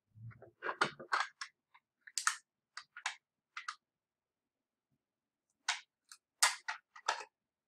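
Clicks and knocks of the Galileoscope's plastic focuser tubes being handled and fitted together with rubber rings, in scattered clusters with a pause of about a second and a half in the middle.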